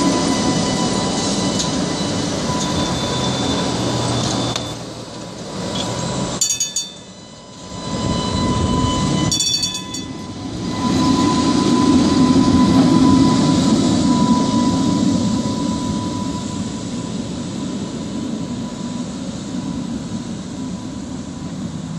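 Electric streetcar passing close by on its rails, wheels and motors running with a steady high whine over a low rumble. The sound slowly fades near the end as the car moves away.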